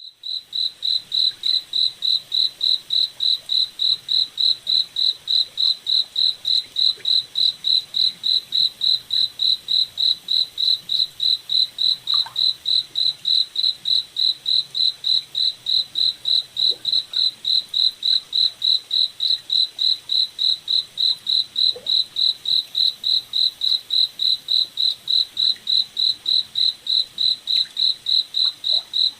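A cricket chirping steadily: one high, even chirp repeating at about two and a half a second without a break.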